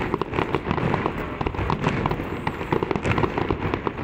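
Fireworks display going off: a dense, continuous run of sharp bangs and crackles, many reports a second.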